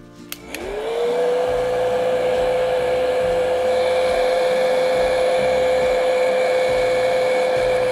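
Handheld hot-air dryer switched on to dry wet acrylic paint: its motor spins up over about a second, then runs with a steady whine and rush of air.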